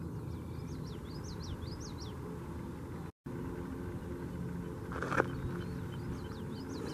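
A songbird singing two phrases of quick whistled notes that each slide up and down, over a steady low outdoor rumble. The sound cuts out completely for an instant near the middle.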